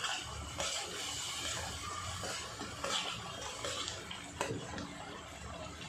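Metal spoon stirring a simmering potato-and-chickpea gravy in a kadhai: a soft steady sizzle with the spoon scraping through, and one sharper knock of the spoon on the pan late on.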